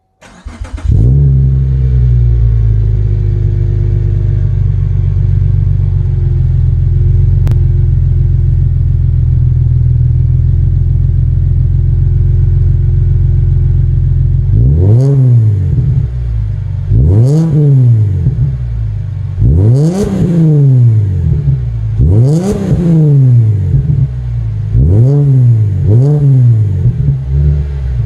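Subaru Legacy 3.6R's flat-six engine, fitted with an AVO Turbo exhaust and Raptor headers, starting up and idling, its idle speed easing down over the first few seconds and then holding steady. About halfway in it is revved sharply six times, each rev rising and falling back to idle, the last two shorter.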